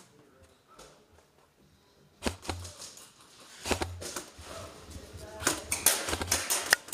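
Airsoft guns firing sharp snapping shots. They begin about two seconds in, a few at a time, then come faster in the last couple of seconds.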